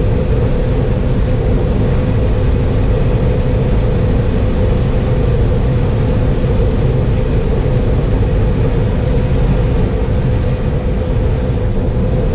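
John Deere 9570 combine running steadily while harvesting corn: a deep, even drone with a steady whine over it.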